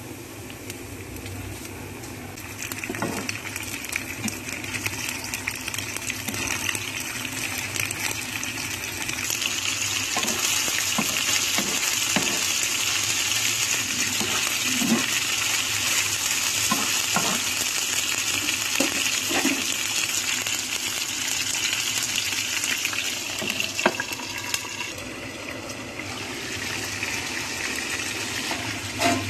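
Raw chicken pieces sizzling in hot oil with fried onions and garlic on an iron tawa, a steady hiss that swells a few seconds in and grows louder from about nine seconds, easing slightly near the end. Scattered sharp clicks and knocks sound over the sizzle.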